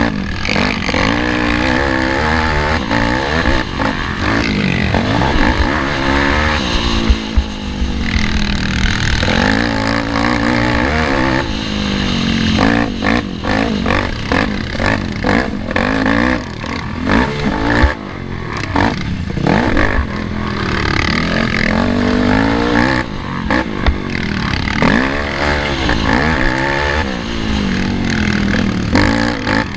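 Small 50cc youth race ATV engine, heard close from an onboard camera, revving up and falling off over and over as the throttle is worked through the track's turns and rises. Frequent knocks and rattles from the quad bouncing over rough dirt run through it.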